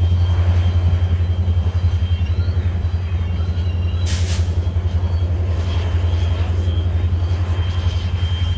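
A locomotive's engine idling out of sight: a deep, steady pulsing hum. A short hiss of air about four seconds in.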